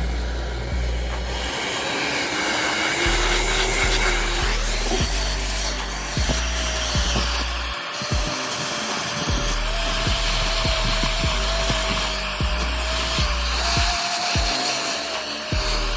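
A small electric tool motor whining at a steady pitch; about four seconds in it rises to a higher pitch and holds there. Background music with a steady beat plays underneath.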